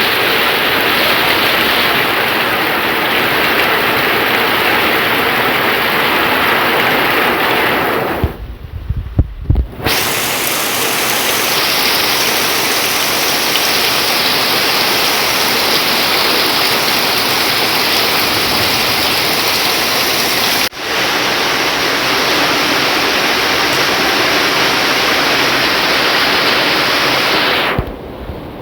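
Heavy rain falling steadily, a dense even hiss. About eight seconds in it breaks off for a second or two, with a few low thumps, then resumes.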